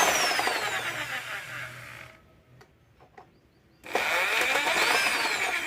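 Bosch GSB 500RE corded electric drill run twice in bursts of a few seconds. Each burst has a high motor whine that rises and falls, with a short pause between them.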